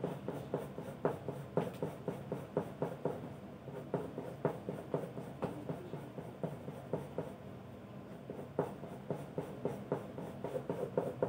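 Soft 10B graphite pencil scratching quick short strokes on drawing paper, sketching hair strands. The strokes come irregularly, a few a second, with a brief lull past the middle.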